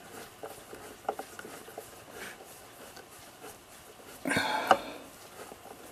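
Small clicks and taps of a screw being worked out of a wooden cuckoo clock case, then about four seconds in a brief rasp ending in a sharp click.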